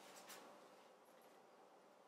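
Near silence: room tone, with a few faint light ticks just after the start.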